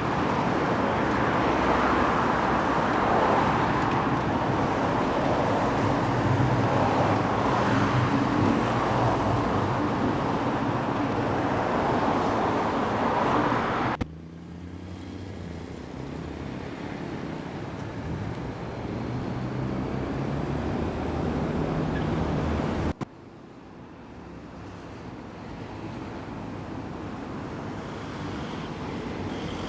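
Road traffic noise: vehicles running along a street, with a low engine hum under it. The sound changes abruptly twice, about halfway and two-thirds through, and is quieter after each change.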